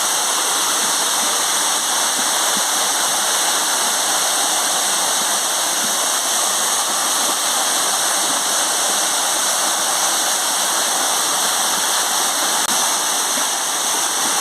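Waterfall: falling water rushing with a steady, even roar.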